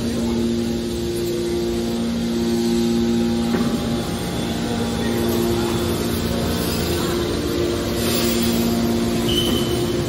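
Hydraulic power unit of a scrap metal baler running: electric motors and pumps giving a steady hum with a low whine in two tones that cut out and come back a few times.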